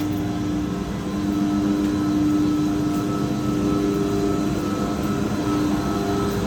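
Steady drone of boiler-room machinery, pumps and motors running, with a steady hum tone over it, getting a little louder about a second and a half in.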